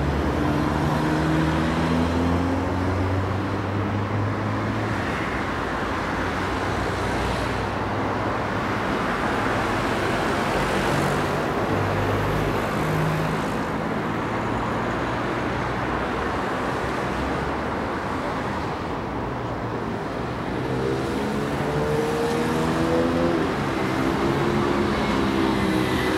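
Steady road traffic: cars passing close by one after another, a continuous mix of engine and tyre noise. About three-quarters of the way through, an engine note rises in pitch as a vehicle speeds up.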